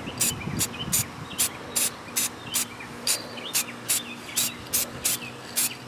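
Aerosol can of clear coat sprayed in short, even bursts, about two or three hisses a second, as a coat goes onto a plastic solar light. Faint bird chirps between the bursts.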